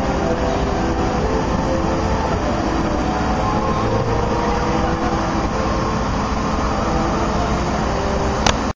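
Water rushing steadily over a small stone waterfall into a stream.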